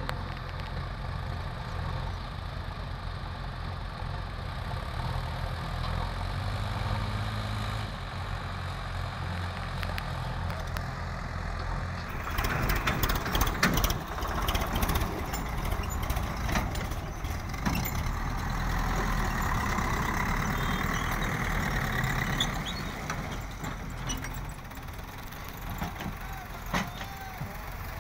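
Heavy diesel engines of an excavator and tractors running steadily. About twelve seconds in the sound gets louder and closer: a JCB backhoe loader's engine working under load, with repeated knocks and clatter as its bucket digs into the soil.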